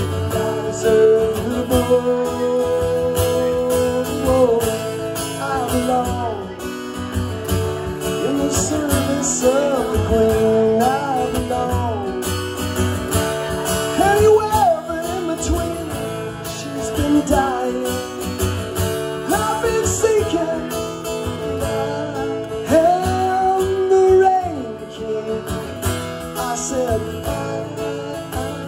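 Strummed acoustic-electric guitar with a harmonica in a neck rack and wordless sung lines over it.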